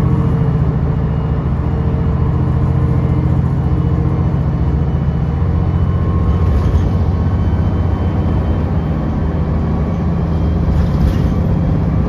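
City transit bus running on the road, heard from aboard: its engine makes a steady low drone over tyre and road noise.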